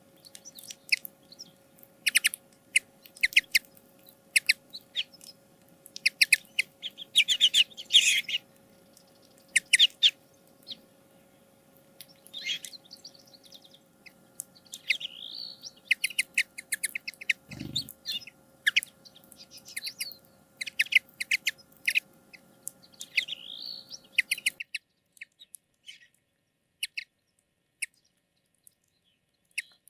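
Common linnets twittering: quick runs of short chirps with a few warbled, wavering phrases. A faint steady hum sits underneath and stops abruptly about 25 seconds in, and there is a single low thump a little before that.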